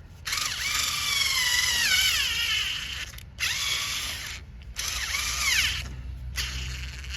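Power drill-driver running in four short bursts, its motor whine sagging in pitch under load as it drives a screw with a washer.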